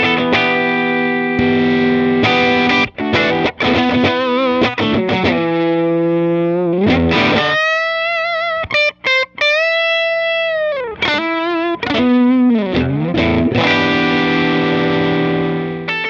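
Overdriven electric guitar played through a JHS Pulp 'N Peel V4 compressor pedal. Short choppy chords come first, then a long bent lead note held with wide vibrato and released downward. It ends on a sustained ringing chord.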